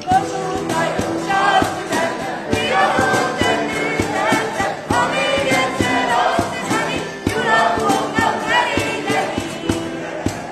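A group of young mixed voices singing a song together in unison, accompanied by strummed acoustic guitars.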